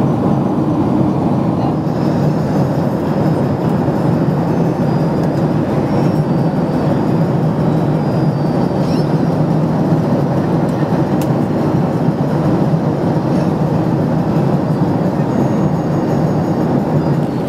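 Steady cabin roar inside a Boeing 767-300ER airliner in cruise flight: the jet engines and the rush of air along the fuselage, a deep even noise with no change.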